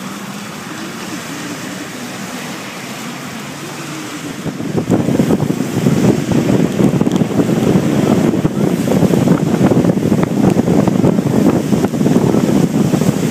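A car on a rain-soaked street: engines humming while it waits, then, about five seconds in, a much louder rushing and crackling of tyres on wet road, rain and wind as it pulls away and drives.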